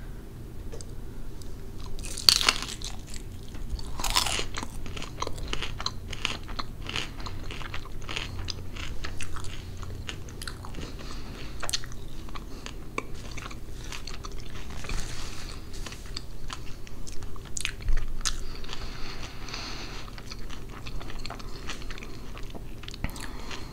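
Close-miked biting and chewing of crispy roast pork skin (pernil): sharp, loud crunches about two and four seconds in, then a long run of smaller crunches as the mouthful is chewed.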